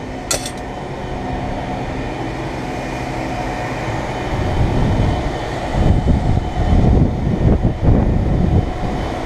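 A cutting tool scraping and grinding through the old windshield gasket and sealant in a rough, continuous rumble. There is a sharp click just after the start, and the grinding comes in louder, uneven surges in the second half.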